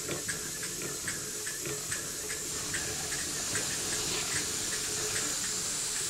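Model Engineer beam engine running slowly, its motion giving a regular light ticking about three times a second over a steady hiss. The ticks fade away in the second half while the hiss grows a little louder.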